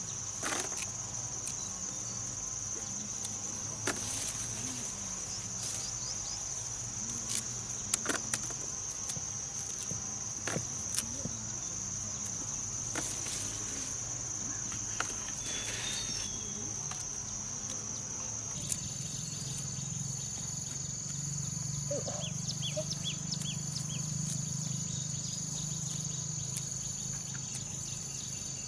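Steady high-pitched insect chorus, with scattered soft clicks and rustles of peanut pods being plucked from uprooted plants and tossed into a basket. About two-thirds of the way through, the insect drone shifts slightly in pitch.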